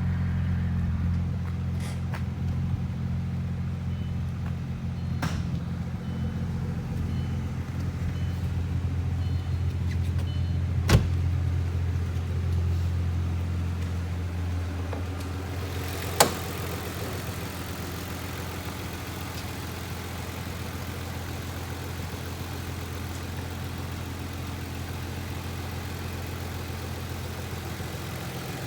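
A car engine running steadily with a low hum. Two sharp clicks cut through it, one about a third of the way in and another about halfway.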